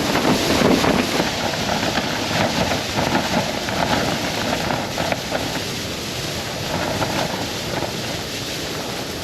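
Strong blizzard wind gusting against a tent, the fabric flapping and rattling rapidly, with wind blasting the microphone.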